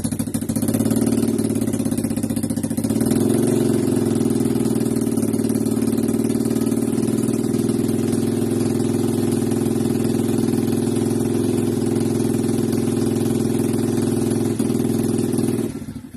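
Old motorcycle engine running steadily, picking up slightly about three seconds in, then shut off near the end.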